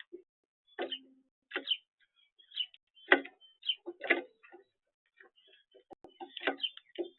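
Birds making short chirps and calls, mixed with sharp clicks and taps, in separate bursts about every half second to second.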